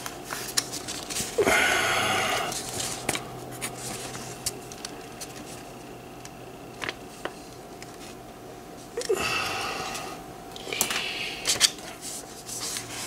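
A sheet of paper rustling as it is handled, with light pen strokes and small clicks as an item on a handwritten list is ticked off. A faint steady hum sits underneath.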